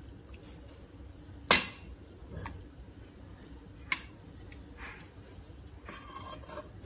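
Metal ladle clinking against a steel pot and ceramic soup bowls while soup is ladled out: one sharp clink about a second and a half in, then a few fainter knocks, and a short soft noise near the end.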